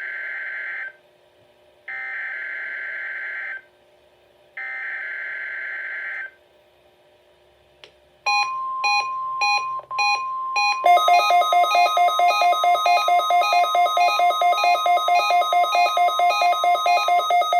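NOAA Weather Radio Required Weekly Test: three bursts of SAME digital header data, then a steady warning alarm tone that starts about eight seconds in. A beeping alarm sounds over the tone and becomes rapid continuous beeping about three seconds later, typical of a weather alert receiver that has been activated.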